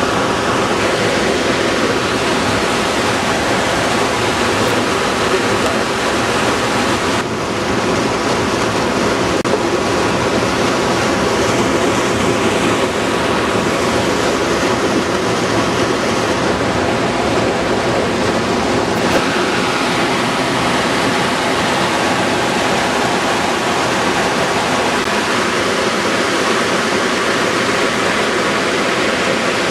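Rushing water of a mountain stream or waterfall, a loud steady rush.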